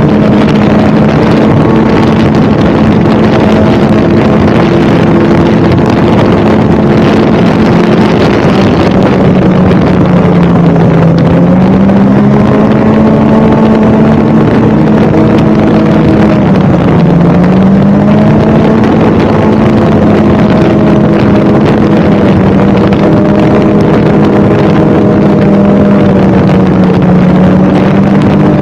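Snowmobile engine running steadily at speed, loud and close. Its pitch dips twice as the throttle eases and climbs back each time.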